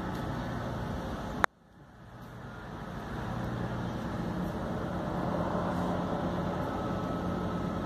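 Steady engine and road noise of a moving vehicle, with a low hum. About a second and a half in there is a sharp click, after which the noise drops out and gradually builds back up.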